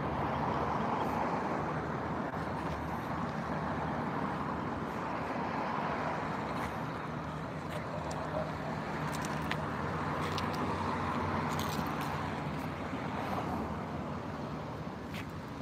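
Steady road traffic noise with a low engine hum, and a few faint ticks in the second half.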